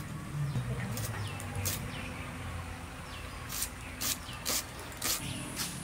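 A small hand blade scraping and peeling ginger root, in short sharp clicks spaced irregularly, about eight in all. Small birds chirp briefly in the background.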